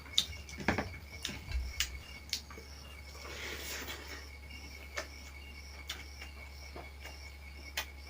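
Insects chirping steadily in a high continuous trill, with scattered sharp clicks and taps like cutlery on dishes. There is a brief rush of noise about three seconds in.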